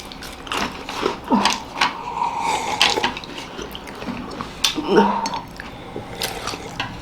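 People eating and drinking hot coffee in a hurry, with slurps and short liquid sounds and a scatter of sharp clicks.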